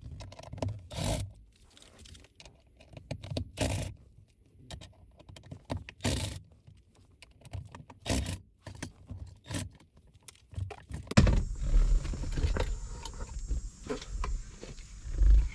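Metal clicks and scrapes of a hand tool working the T20 Torx screws out of a car's center console lid hinge, with a few sharp clatters spaced a couple of seconds apart. About two-thirds of the way through, steadier handling noise with low thumps takes over.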